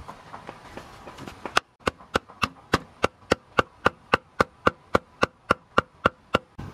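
A short length of bamboo used as a mallet knocking on upright bamboo slats. Faint taps give way, about a second and a half in, to a steady run of hollow knocks, roughly three to four a second.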